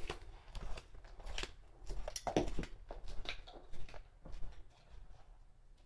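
Irregular small clicks and rustles of sandal straps and buckles being handled while the shoe is tried on.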